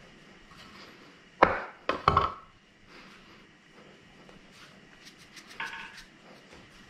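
Bench scraper chopping through logs of ricotta gnocchi dough onto a floured cutting board: two sharp knocks about one and a half and two seconds in, then a few lighter taps and a short clink near the end.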